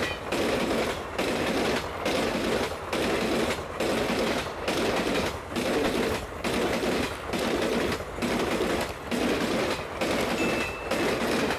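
Passenger coaches of an Indian Railways train passing at high speed, the wheels clattering over the track. The sound comes in a steady beat a little faster than once a second, one beat for each coach going by.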